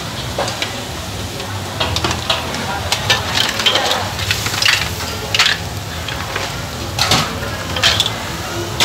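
Crab in sauce sizzling in a hot wok on a gas stove, with a metal ladle stirring and scraping against the wok, giving frequent sharp clinks over the steady sizzle.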